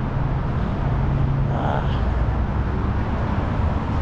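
Steady low engine rumble, a vehicle running nearby.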